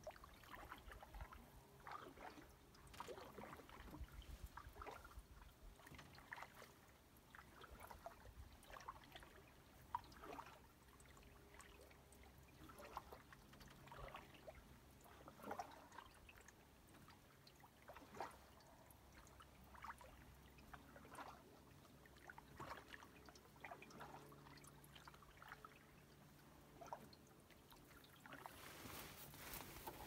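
Faint trickling and dripping of water around a canoe paddled slowly over still water, in soft, irregular little splashes.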